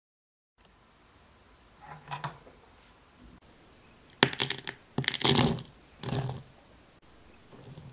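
Dry powdered ingredients poured into a plastic mixing bowl. A sharp click comes a little after four seconds in, then there are three short pours, each a brief rush of sound.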